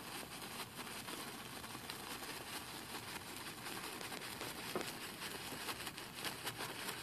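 Faint, continuous scratchy brushing of a 2-inch bristle brush worked over a canvas, softening and blending wet paint.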